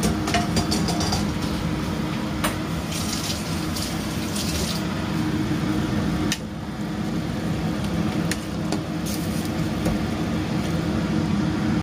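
A wooden spatula stirring tofu puffs into simmering broth in a steel pot: wet squishing and sloshing, with a few sharp knocks of the spatula against the pot, over a steady low hum.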